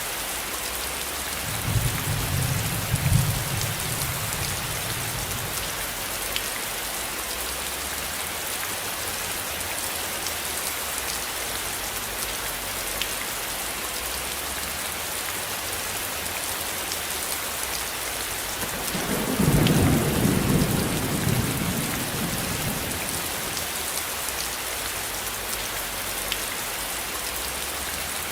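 Steady rain falling, with two low rumbles of distant thunder, one about two seconds in and a stronger one about nineteen seconds in.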